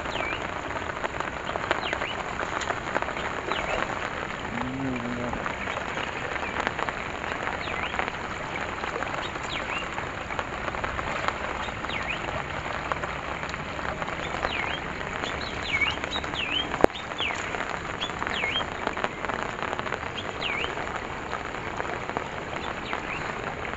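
Steady hiss of rain mixed with water rushing through a fine-mesh fishing net set across a small channel. Short high chirps come and go, many of them in the second half, and a single sharp click sounds about 17 seconds in.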